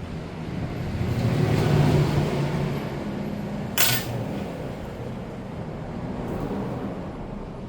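A motor vehicle passing, its low engine hum swelling over the first two seconds and then slowly fading, with one short sharp hiss about four seconds in.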